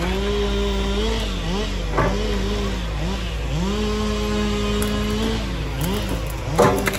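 Liebherr A 922 Rail wheeled excavator's diesel engine and hydraulics working under changing load, the note rising and falling and holding as the grapple swings and grabs brush. A knock about two seconds in and a louder clunk near the end.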